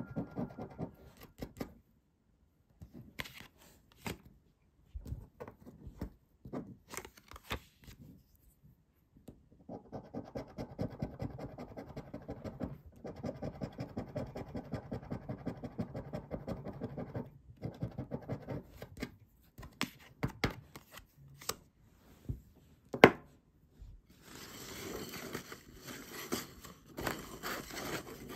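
A coin scratching the coating off a paper scratch card in rapid short strokes, in several runs broken by pauses. There is a single sharp click about two-thirds of the way through, then a softer, steadier rustle near the end.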